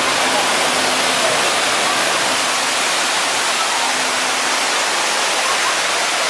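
Steady, even rush of falling and splashing water from water-park fountains, with water pouring from statues into a stone basin.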